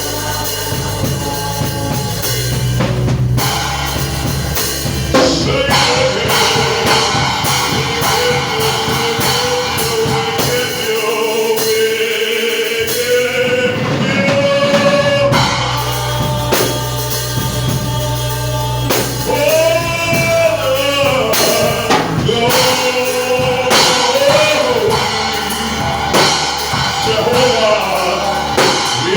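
Gospel worship music: a singer holding a melody over a band with drum kit and sustained bass.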